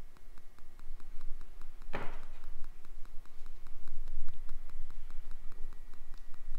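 Hands handling a brake caliper bracket and its greased slide pins, with one sharp knock about two seconds in. A faint, even ticking about five times a second and a low hum run underneath.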